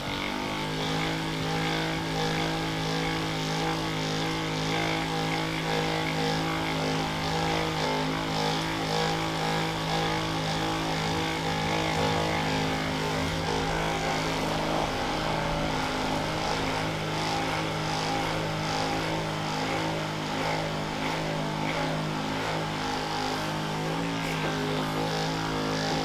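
Handheld percussion massage gun running at a steady speed, its motor humming at a constant pitch while it works on the lower-back muscles.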